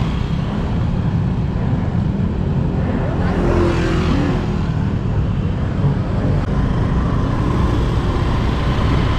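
Road traffic: cars and motorbikes going by in a steady, loud rumble, with a couple of brief faint tones over it.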